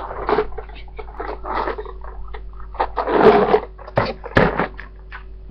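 Close-up chewing and mouth sounds of someone eating pizza right at a webcam microphone, with a louder noisy burst about three seconds in and two sharp knocks shortly after.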